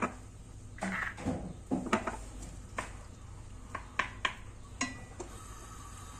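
Wooden spoon stirring chicken pieces browning in a pot, scraping at first and then knocking sharply against the pot's rim several times, with light clinks of kitchenware.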